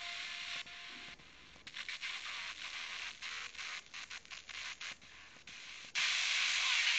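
FM radio static from a Sony Ericsson phone's tuner. The hiss breaks into short choppy bursts with brief dropouts as the tuner steps between frequencies, then runs as a louder, steady hiss from about six seconds in.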